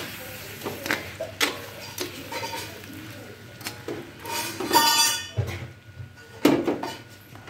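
Spatula scraping and knocking against a metal wok while chicken and onions are stirred: irregular clanks, with a longer ringing scrape about five seconds in.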